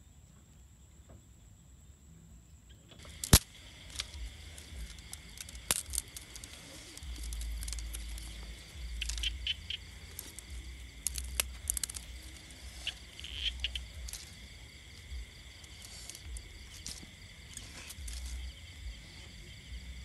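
Dry sticks and twigs being handled, snapped and laid on a pile, with sharp cracks, the loudest about three seconds in. Insects chirr steadily behind them.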